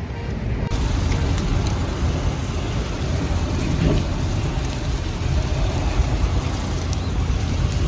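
Wood fire burning in a campfire pan, a dense steady hiss with scattered sharp crackles and pops, over a strong low rumble.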